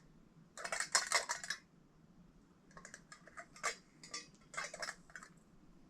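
Small hard parts of an unboxed item, including a glass piece, being handled and set down on a table. A quick cluster of clinks and knocks comes about a second in, followed by a few lighter taps and clicks.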